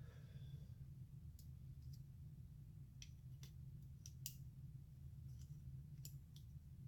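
Faint, scattered clicks of a small screwdriver working old O-rings off a vacuum pump part, over a low steady hum.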